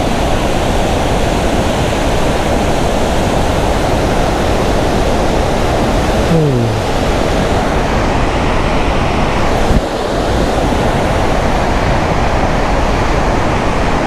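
Steady, loud rush of Bahuti Falls, a very tall waterfall in full muddy flow, plunging into its gorge. About six seconds in, a short falling tone sounds briefly over the roar.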